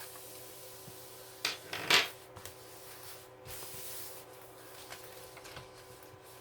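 A diamond painting canvas being handled and rubbed flat, its surface rustling and rubbing, with two louder rustles about one and a half and two seconds in.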